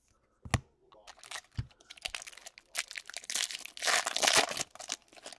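Baseball card pack wrapper being torn open and crinkled, with a sharp click about half a second in and the loudest crinkling around four seconds in.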